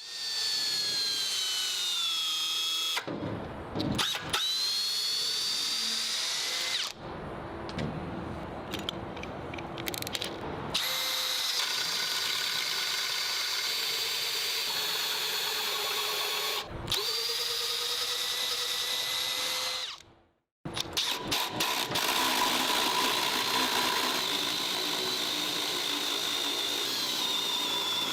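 Makita HP001G 40V brushless combi drill running in a series of trigger pulls: a steady motor whine that sags in pitch and recovers, as under load. There are short breaks between runs and a full stop about two thirds of the way through before it starts again.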